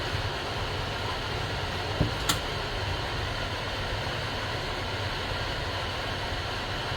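Steady machine hum, with two sharp clicks about two seconds in.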